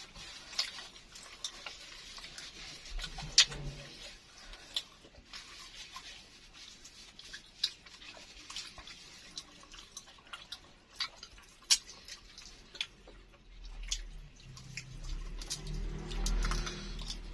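Close-up eating sounds: chewing and lip smacks with scattered small wet clicks, from a mouthful of crispy-edged egg martabak filled with vermicelli.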